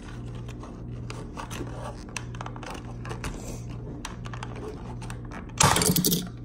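Clear plastic blister packaging crinkling and clicking as toy cars are pried out of it by hand. Near the end, a loud crackle of the plastic lasts about half a second.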